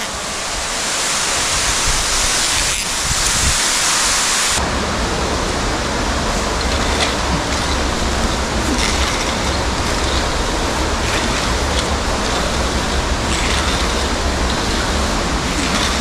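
Steady rushing roar of an underground waterfall and its spray. About four and a half seconds in, the sound changes abruptly to a deeper, duller rush.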